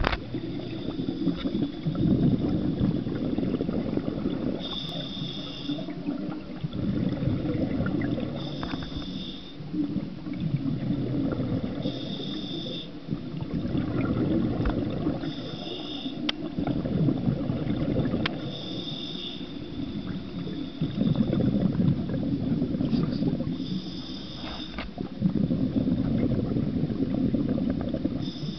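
Scuba diver breathing through a regulator underwater. Each breath brings a short hiss from the demand valve on the inhale, then a bubbling rumble of exhaled air, repeating about every three to four seconds.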